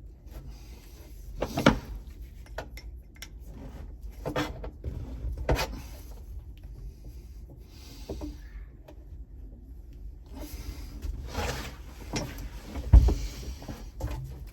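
Gear shifter parts of a W56 transmission being worked into place by hand: scattered clicks and knocks of the parts with rubbing between them, the sharpest knock near the end.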